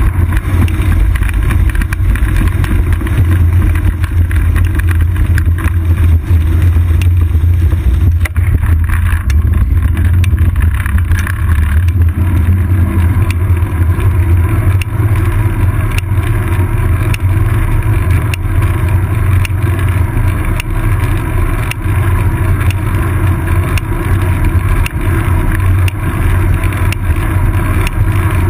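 Loud, steady rumble of wind and road vibration picked up by a seat-post-mounted GoPro Hero 2 on a moving bicycle, with faint ticks now and then.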